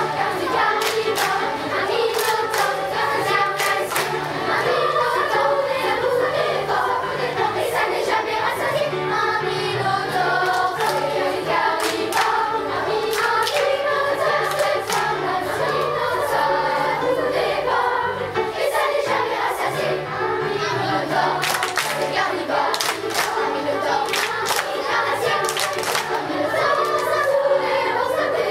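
Children's choir singing in French with instrumental accompaniment.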